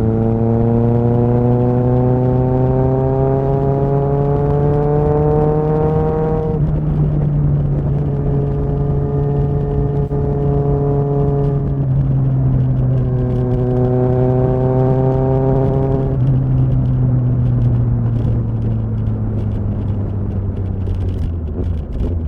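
Kawasaki ZXR motorcycle's inline-four engine under way. The revs climb steadily for about six seconds, then drop at a gear change and hold. They climb again briefly, then fall away slowly as the throttle is eased off near the end.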